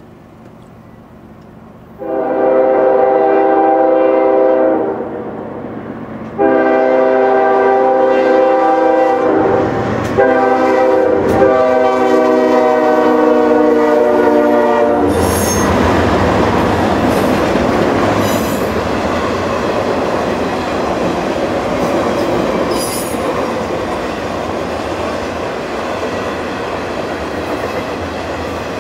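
Freight train diesel locomotive sounding its horn for a grade crossing: a short blast of about three seconds, then after a brief pause a long blast of about eight seconds. The horn cuts off as the locomotive passes, giving way to the steady rumble of the engine and the train's wheels rolling over the rails, with a few sharp clicks.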